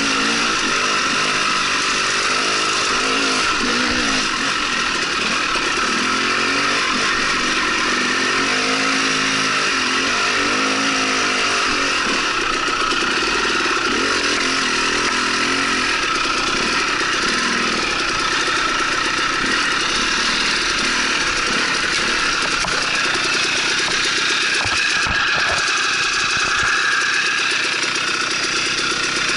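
Dirt bike engine running as it is ridden along a trail, the revs rising and falling with the throttle.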